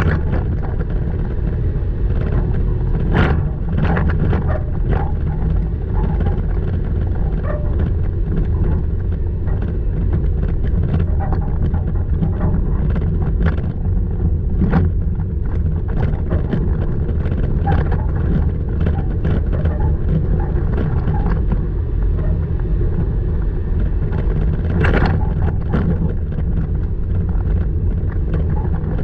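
Toyota Tacoma driving a rough dirt trail: a steady low rumble of engine and tyres with frequent short knocks, rattles and squeaks from the truck.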